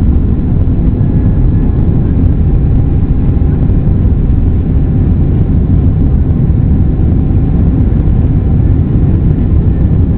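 Boeing 767-200's twin jet engines at takeoff power, heard from inside the cabin as a loud, steady deep rumble with a faint whine above it.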